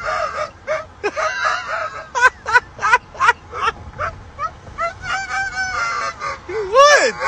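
A dog howling from a moving car's window: a string of short, hoarse cries that rise and fall in pitch, with a longer, louder one near the end.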